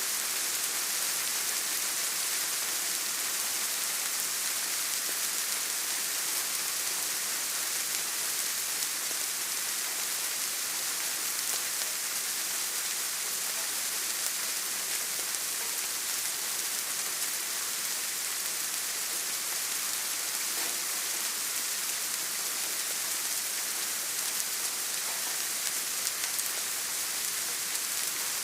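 Steady rain falling: an even hiss of many fine drops, unchanging in level.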